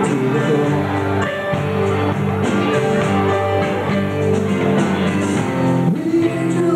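Live rock band playing: electric guitar chords over a drum kit, with cymbal strokes keeping a steady beat.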